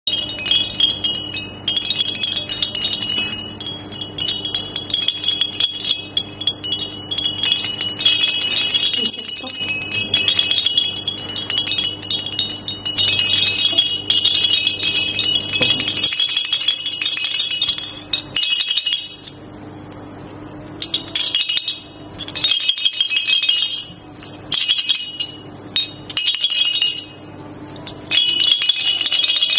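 Chimes inside plush baby hanging toys tinkling as the toys swing and are shaken: high, bright ringing, steady through the first half, then in separate shakes with short pauses.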